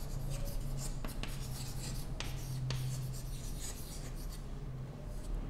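Chalk writing on a blackboard: a string of short taps and scratches from the chalk tip as letters are written.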